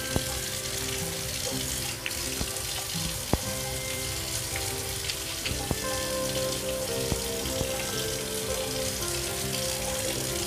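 Batter-coated mushroom pieces frying in shallow hot oil in a kadai: a steady sizzle with a sharp pop every second or two, the crackle of water from the mushrooms spitting in the oil.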